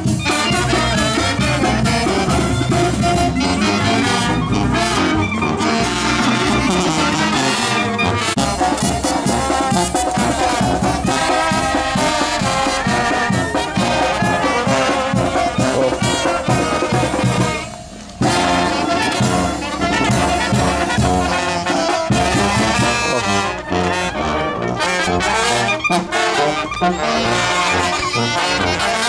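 Brass band music with trombones and trumpets playing continuously. It drops away briefly about seventeen seconds in, then comes back abruptly.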